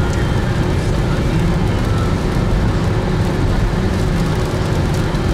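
Steady road noise inside a car's cabin driving on a wet highway in heavy rain: tyres hissing on wet asphalt under a low, even rumble, with rain hitting the car.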